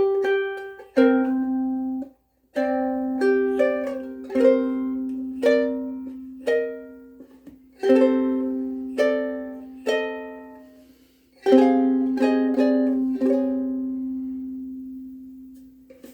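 Soprano ukulele playing a fingerpicked riff: melody notes plucked over a low note that keeps ringing. It stops briefly twice and ends on a long ring-out.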